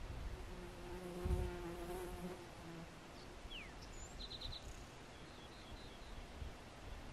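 A flying insect buzzing past for about two seconds, a steady hum that then fades out, with a brief low thump about a second in. Birds chirp short high trills in the background.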